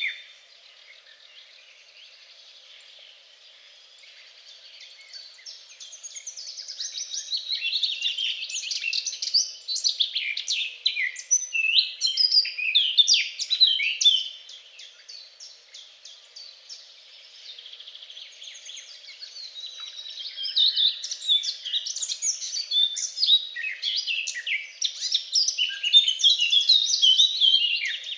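Songbirds singing in fast runs of high chirping notes: quieter for the first few seconds, then about ten seconds of song, a short lull, and song again through the rest.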